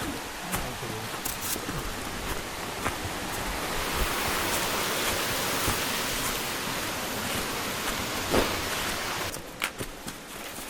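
Stream water rushing in a steady hiss that swells about four seconds in and falls away again near the end. A few faint taps are heard over it.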